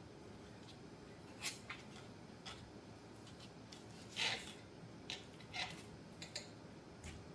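A butter knife spreading peanut butter onto a cardboard toilet paper roll: short scrapes and light clicks every second or so, with the longest and loudest scrape about four seconds in.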